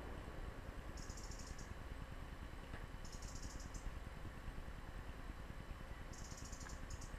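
A small bird pecking seed on a wooden feeder table, with a few faint clicks over a steady hiss. Four short, high, rapidly pulsing trills come about a second in, around three seconds, and twice near the end.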